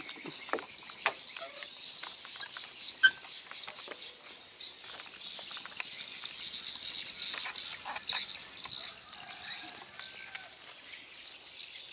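Steady high-pitched insect chirring, with a few sharp knocks scattered through it; the loudest comes about three seconds in.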